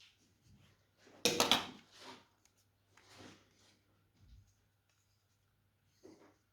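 Small plastic computer mouse being taken apart by hand: a burst of clicking and scraping plastic about a second in, then a few fainter scrapes and taps.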